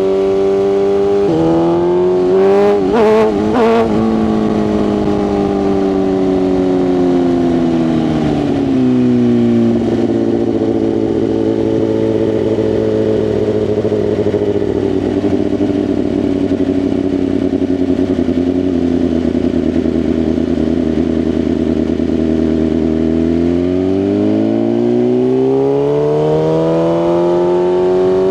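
BMW S1000RR inline-four engine. It gives a few quick rev flicks early on, then the revs drop over several seconds and hold low and steady for about thirteen seconds. Near the end the pitch rises smoothly as the bike pulls away.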